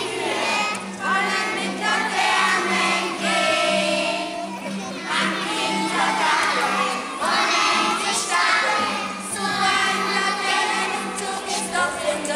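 A group of young children singing together, a St. Martin's Day lantern song.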